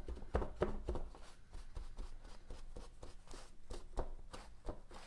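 A paper towel dabbed and rubbed by gloved hands over resin-wetted fiberglass cloth on a model airplane wing, blotting up excess resin: a run of soft, irregular taps and rustles.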